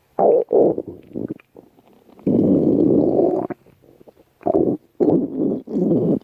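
A person's stomach growling in a run of gurgling rumbles: a few short ones, a longer rumble of about a second in the middle, then three more short ones near the end.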